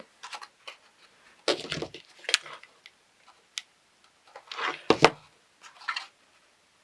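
Paper pieces being handled and pressed together by hand: irregular rustles and light taps, busiest twice, as a glued tab is matched up and stuck to the side.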